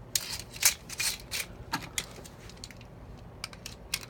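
Small hard plastic parts clicking and rattling irregularly: Beyblade tops and launchers being handled between rounds.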